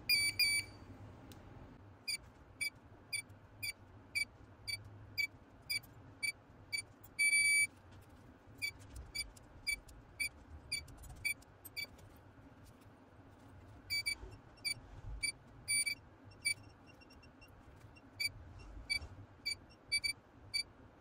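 Short, high electronic beeps from a diagnostic multimeter as its probe is touched to the pins and test points of a refrigerator door knock-sensor board. The beeps come mostly in quick runs of about two a second, with one longer beep about seven seconds in.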